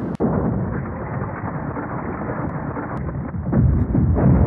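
Low rumble of a rock face collapsing in a landslide, rock and debris pouring down the cliff; the rumble grows louder about three and a half seconds in.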